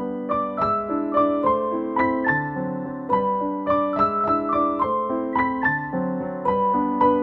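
Background piano music: a melody of evenly paced single notes over lower chords.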